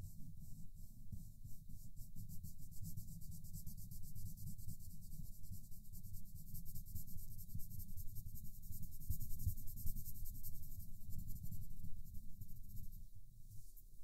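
Coloured pencil shading on paper in quick, even back-and-forth strokes, a close, crisp scratching over a low rumble. The scratching stops about a second before the end.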